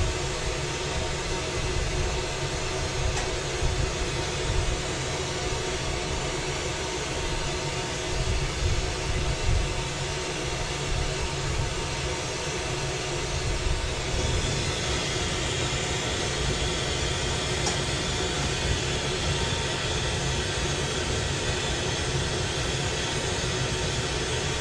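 Glassworking bench torch burning steadily: a low, rumbling flame roar with a hiss. The hiss grows brighter a little past halfway through.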